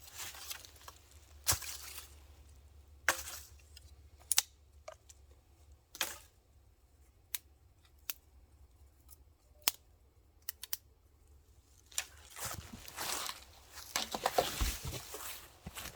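Scattered sharp snaps and clicks, one every second or two, then denser crunching and rustling for the last few seconds: dry twigs and kindling being broken and handled for a campfire.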